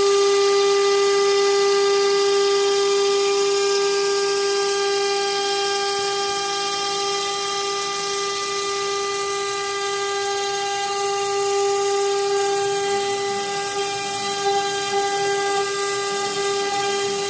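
CNC router spindle running at constant speed with a steady whine while its V-bit carves a pattern into a wooden door panel, over a hiss of cutting noise.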